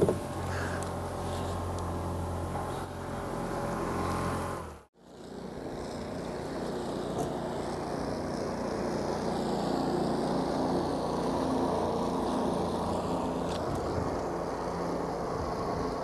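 Mercury OptiMax outboard motor running steadily at low trolling speed. About five seconds in the sound breaks off for a moment and comes back, after which the motor hum is mixed with more hiss.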